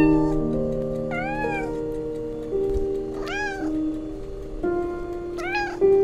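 A cat meowing four times, a couple of seconds apart, each meow rising then falling in pitch; the first is short. Soft piano music with held notes plays throughout.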